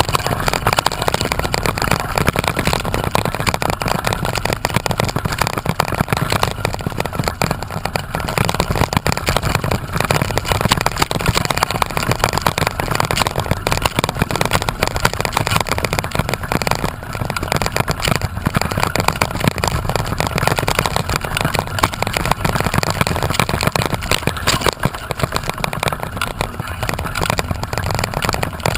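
Wind buffeting the microphone: a steady loud rush with a heavy low rumble.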